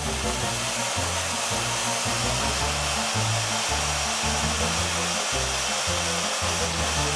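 Vacuum cleaner running with a steady whooshing drone for several seconds, then cutting off near the end.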